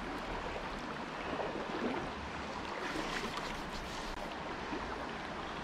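Small high-mountain river running, a steady rush of water.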